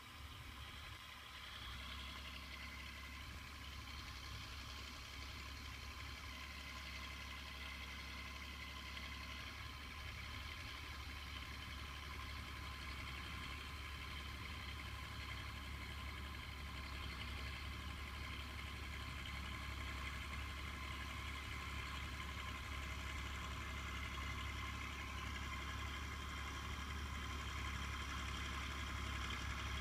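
John Deere 4240 tractor's six-cylinder turbo diesel running steadily while pulling a five-furrow reversible plough, with a deep even hum that grows gradually louder.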